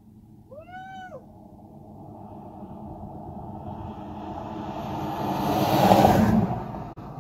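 A road vehicle passing close by: its sound swells for several seconds, is loudest about six seconds in, then drops away quickly. About a second in, a short high call rises and falls.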